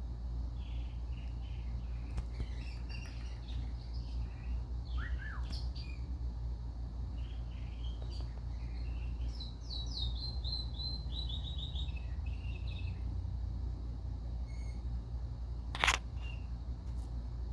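Indian ringneck parakeet chirping and chattering in short high notes, with a quick run of falling notes about ten seconds in. A single sharp click comes near the end, over a steady low hum.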